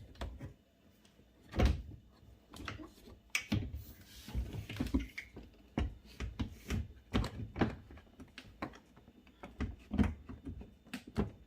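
Irregular clicks and knocks of a plate and screws being handled and fitted onto a dishwasher door, with the loudest knocks about one and a half seconds in and again near ten seconds.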